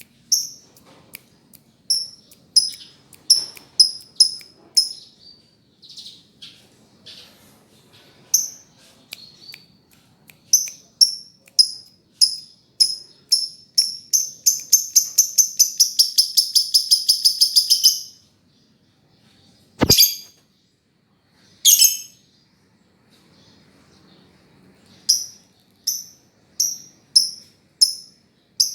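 Lovebird chirping: a series of sharp, high chirps that speed up into a fast run of chirps lasting about four seconds. A single sharp click comes a little past the middle.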